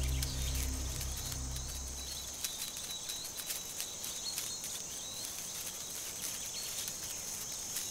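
Insects chirring steadily in a high, thin band, with scattered ticks and short high chirps over it. Low background music fades out in the first two seconds.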